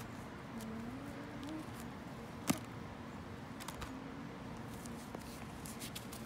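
Quiet background with faint distant voices, and one sharp click about two and a half seconds in.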